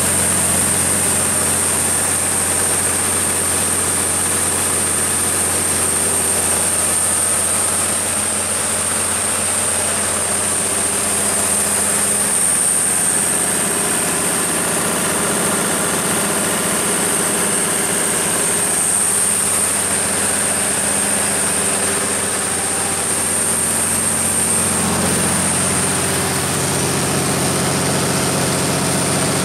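Cummins KTA19-G4 turbocharged straight-six diesel engine of a 500 kW standby generator set running steadily at governed speed. A steady high-pitched whine sits above the engine note.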